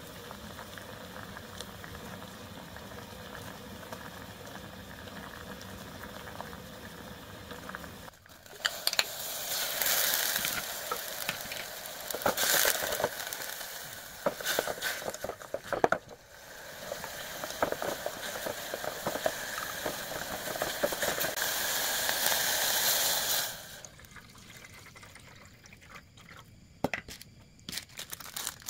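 Chopped green onion frying in tuna oil in a thin aluminium ramen pot over a gas burner, stirred with chopsticks: a loud sizzle with crackles that starts about 8 s in, after a steady low hum. The sizzle cuts off suddenly near the end as water goes into the pot.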